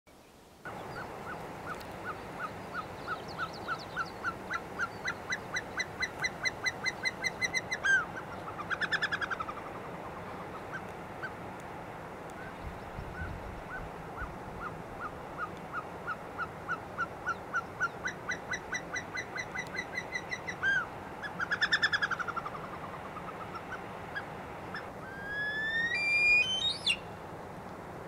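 Caucasian snowcock song: a long series of whistled notes that speed up and rise in pitch, ending in a short falling, bubbling flourish, given twice. Near the end a single whistle rises steeply.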